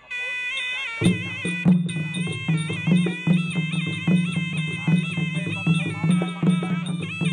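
Traditional Khmer boxing ring music. A shrill reed pipe plays a wavering melody, and drums come in about a second in, beating steadily about twice a second.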